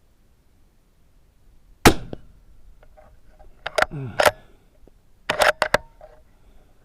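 A single suppressed rifle shot from a bolt-action Savage Axis II, a sharp crack about two seconds in with a short decaying tail. It is followed by two quick groups of metallic clicks and clacks, typical of the bolt being worked to eject the case and chamber the next round.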